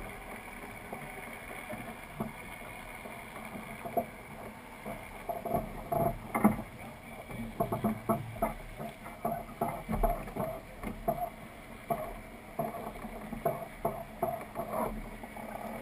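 Dufour 45e sailing yacht under way: a steady wash of water and wind. From about four seconds in come irregular clicks and knocks, several a second, from the crew working the sheets and winches.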